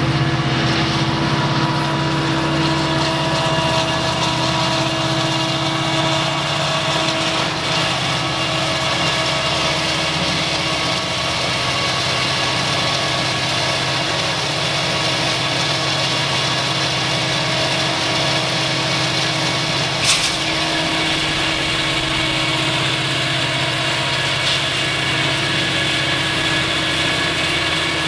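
Steady engine hum at an even pitch, with one sharp click about twenty seconds in.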